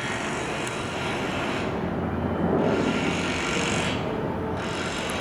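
Steady outdoor rumble and hiss, swelling for a couple of seconds in the middle, like a passing aircraft, traffic or wind on the microphone.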